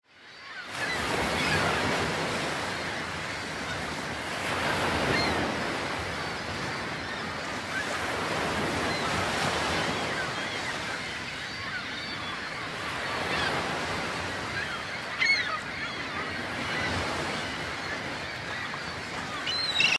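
Sea surf breaking and washing ashore, the noise swelling and ebbing about every four seconds, with a few short high gull calls over it, clearest near the end.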